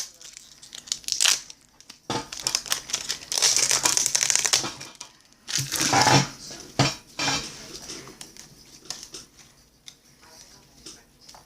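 Crinkling and crumpling of a baseball card pack wrapper being torn open and handled, in several bursts over the first seven seconds, then only light rustles and ticks.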